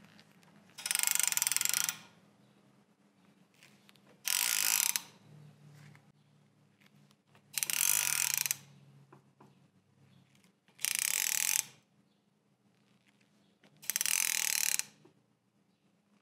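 Ratchet wrench turning the forcing screw of a gear puller, clicking in a rapid run about a second long on each return stroke, five times about three seconds apart. The puller is drawing the clutch assembly off a lathe spindle under load.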